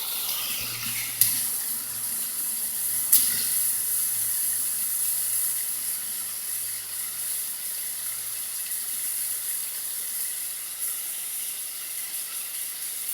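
Waterfall rushing: a steady hiss of falling water, with two sharp clicks about one and three seconds in.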